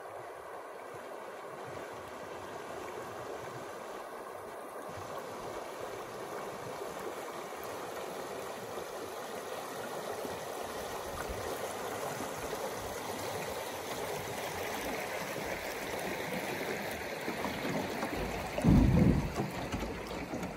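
Shallow river riffle rushing and gurgling around a canoe as it runs downstream, the water noise slowly growing louder. Near the end comes one heavy low bump as the canoe's hull scrapes over a rock.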